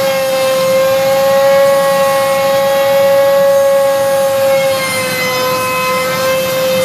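CNC router spindle whining at a steady high pitch while its bit cuts through plywood; the pitch sags slightly about five seconds in, then steadies again.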